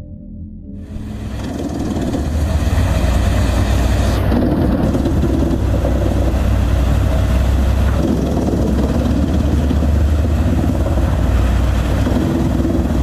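Heavy machinery engine running steadily with a deep rumble, growing louder over the first two seconds and then holding level.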